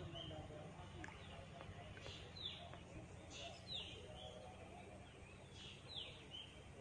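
A bird calling again and again, each call a quick downward-sliding note followed by a short note, repeating about every one and a half to two seconds over a faint low outdoor rumble.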